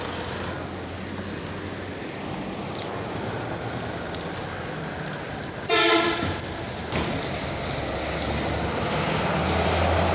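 Road traffic on a wet street, with a vehicle horn sounding one blast of about a second roughly six seconds in. Near the end an approaching vehicle's tyres and engine on the wet road grow steadily louder.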